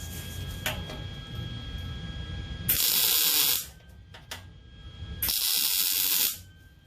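Welder laying two short tack welds, each a hiss about a second long, the second following about two and a half seconds after the first.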